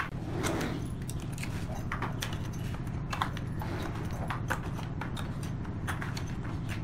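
Steel pry bar knocking and scraping against pine boards and their nails: a run of light, irregular clicks and taps over a steady low hum.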